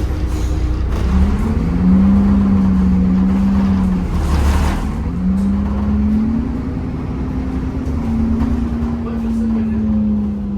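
Temsa Avenue LF 12 city bus under way, its DAF Euro 5 diesel and ZF automatic gearbox running over a low rumble, with a loud whine that comes in about a second in and glides up and steps in pitch several times.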